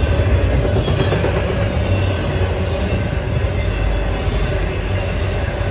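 Intermodal freight train cars (double-stack container cars and trailer flat cars) rolling past: steel wheels on the rails in a steady rumble, with thin squealing tones from the wheels over it.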